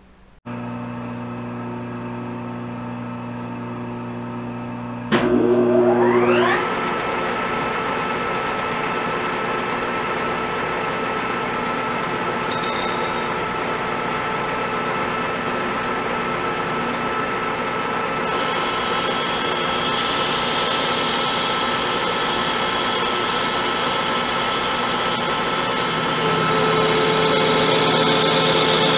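Pratt & Whitney Model B 12x30 engine lathe starting and running. A motor hum comes on about half a second in. About five seconds in a click is followed by a rising whine as the spindle spins up, and it settles into steady running with gear whine. Near the end the tone shifts and gets a little louder as the tool takes a cut to square the corner of the workpiece.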